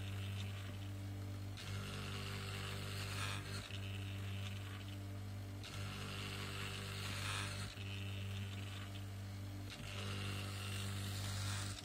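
Small stepper motors of a homemade CD-drive CNC plotter, the drive's laser-sled stepper and a floppy-drive stepper, both driven from a single H-bridge, humming steadily as they step the pen and tray. The hum breaks off briefly about every two seconds as each stroke ends, with a higher hiss over some of the strokes.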